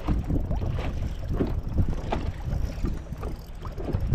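Choppy water slapping irregularly against a small boat's hull, with wind buffeting the microphone.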